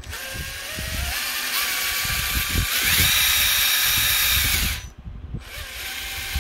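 Axial SCX10 III RC crawler's electric motor and gearbox running: a whine that rises as the throttle opens, steps up in pitch about three seconds in, cuts off near five seconds and starts again at a steady lower speed. The gearbox is freshly packed with grease and runs smooth and quiet, in the owner's view.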